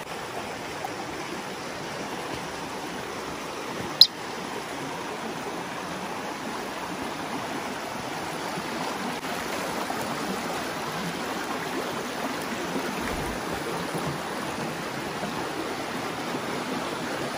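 Shallow creek rushing steadily over rock ledges and small cascades, a little louder in the second half. About four seconds in, a single short, sharp high-pitched sound cuts through the water.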